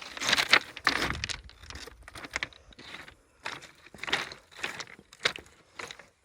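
Footsteps on rocky beach stones and pebbles, an uneven step about every half second to second, loudest in the first second.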